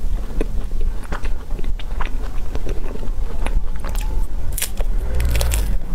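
Close-miked eating of an ice cream waffle cone: scattered crisp crunches and clicks of biting and chewing, thickening into denser crunching near the end, over a steady low rumble.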